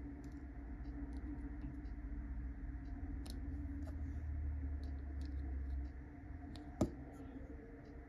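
Small metal parts of a Uni Kuru Toga mechanical pencil being handled and fitted together: faint scattered clicks and taps, with one sharper click near the end, over a steady low background hum.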